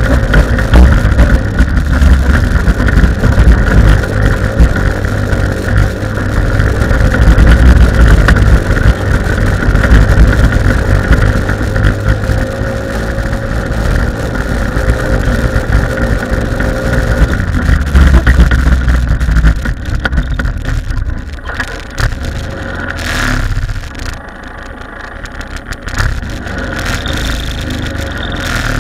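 PGO 250 buggy engine with a Malossi CVT variator, running hard at steady revs as the buggy laps a rough dirt circuit. About twenty seconds in it eases off and goes quieter for a few seconds, then picks up again near the end.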